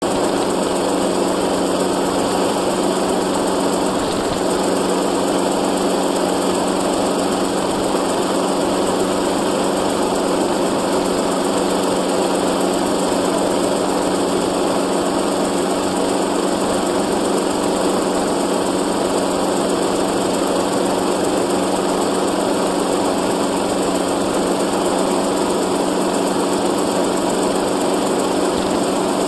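Helicopter engine and rotor noise heard from on board in flight: a steady drone with a constant low hum and no change in pitch.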